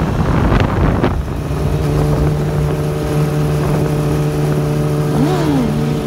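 Yamaha R1 sport bike's inline-four engine running at a steady pitch under way, with two sharp cracks in the first second and a brief rise and fall in pitch near the end.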